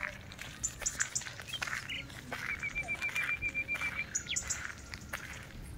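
Birds chirping, with a quick trill of about a dozen short, evenly spaced notes of one pitch in the middle, and scattered brief high chirps around it.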